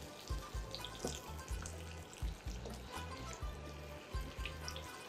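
Lamb chops sizzling in hot oil and butter in a frying pan, a steady hiss with small crackles, over background music with a steady bass beat.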